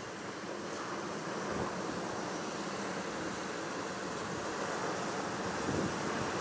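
Steady rushing of sea surf, mixed with wind, swelling slightly now and then.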